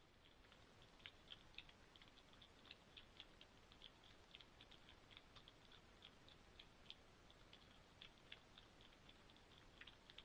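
Faint, irregular high-pitched ticking, several ticks a second, over a low background hiss.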